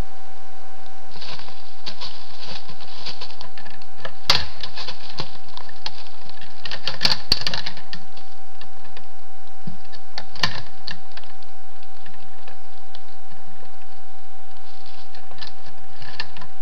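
Trail camera's steady electronic whine and hiss, with runs of clicking and crackling as a whitetail buck works the overhanging licking branch above his scrape; the sharpest clicks come about four seconds in and around seven seconds, with a few more later.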